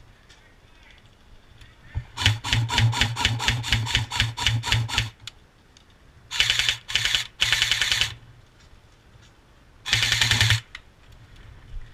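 Electric airsoft rifle firing: a quick string of single shots, about five a second for some three seconds, then four short full-auto bursts, each with the hum of the gun's motor and gearbox under the clatter.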